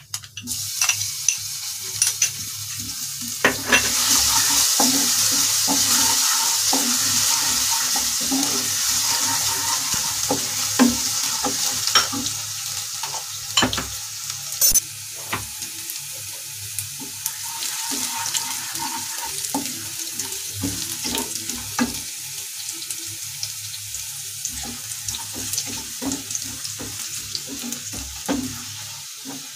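Crushed garlic sizzling in hot oil with cumin seeds in a nonstick kadai. The sizzle jumps up a few seconds in as the garlic goes into the oil, then slowly dies down as it fries. A wooden spatula taps and scrapes the pan as it is stirred.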